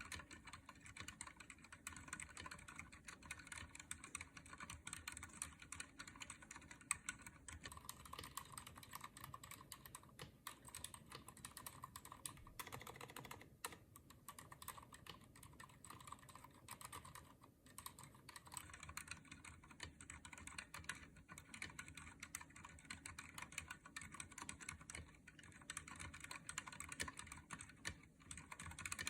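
Rapid, continuous typing on a Cherry MX Board 3.0S RGB mechanical keyboard with Cherry MX Silent Red linear switches, whose dampened keystrokes make a muted clatter.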